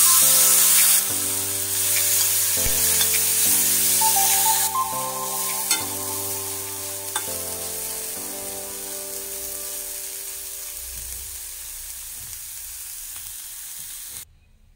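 Chopped, boiled cluster beans sizzling in hot oil in a stainless-steel pan as they are stirred, with a couple of sharp clicks. The sizzle is loudest at first, dies down gradually, and cuts off abruptly just before the end. Soft background music plays underneath.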